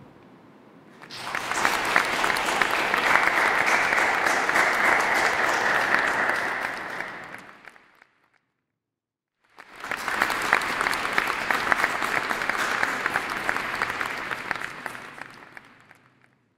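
Audience applauding in two rounds of about six to seven seconds each, separated by a short break of complete silence. Each round starts quickly and fades out at the end.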